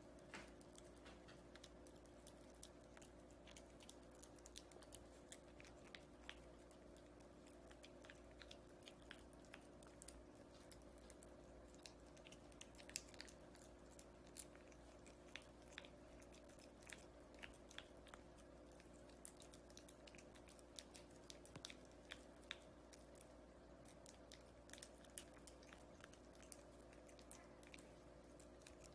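A husky-type puppy licking and chewing at a banana: faint, irregular small clicks, over a steady low hum.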